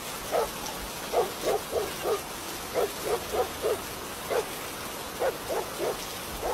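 A dog barking repeatedly in short runs of up to four barks, over a steady hiss of rain.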